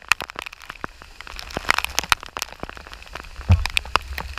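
Rain falling, with big drops hitting a hard surface close by in irregular sharp taps and pops over a low rumble. There is a heavier thump about three and a half seconds in.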